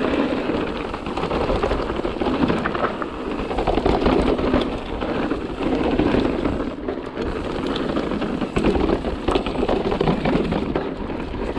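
Mountain bike rattling over a rough, rocky trail: tyres crunching on stone, with a steady stream of sharp knocks and clatters from the bike.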